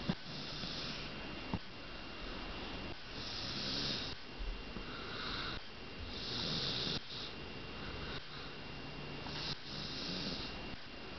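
A person snoring in sleep, a series of rasping breaths a few seconds apart.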